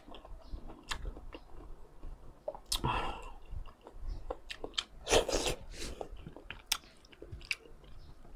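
Close-miked chewing of crunchy food, with scattered small crunches and two louder crunches, about three seconds in and about five seconds in.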